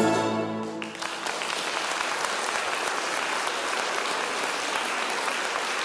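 The final chord of a Russian folk-instrument orchestra, with balalaika and domra soloists, rings out and dies away within the first second. An audience then applauds steadily.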